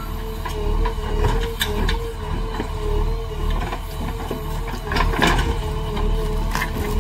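JCB 3DX backhoe loader working: its diesel engine runs steadily with a wavering whine over it and scattered clanks and knocks. A louder rushing, scraping noise comes about five seconds in.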